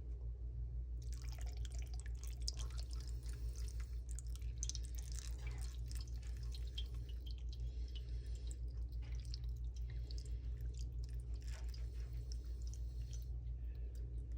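Water being poured into the bowl of a tabletop waterfall fountain, splashing and trickling from about a second in until shortly before the end. A steady low hum runs underneath.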